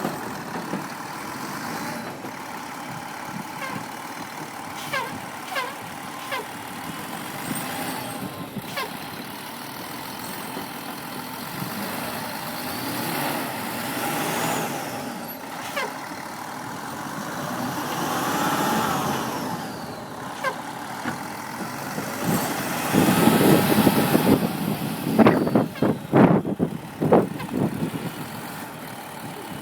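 A sanitation truck with a snow plow, running and revving as it tries to pull free of the snow it is stuck in, the engine rising and falling in pitch. Near the end comes a louder stretch of sharp knocks and clanks.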